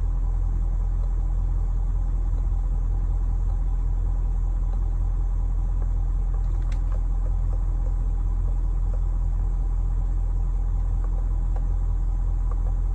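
Ford 6.7 L Power Stroke V8 turbodiesel in a 2020 F-250 idling steadily, a constant low rumble heard from inside the cab.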